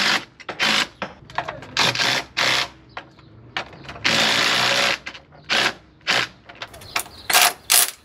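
Cordless drill-driver driving screws into wood in short stop-start bursts, with one longer run about four seconds in, fastening a steering pulley's mounting plate.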